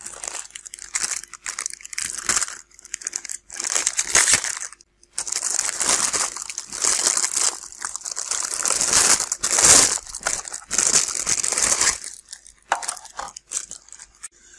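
Small plastic bags crinkling and rustling as parts are unpacked from them, in irregular bouts of crackly noise that die down about twelve seconds in.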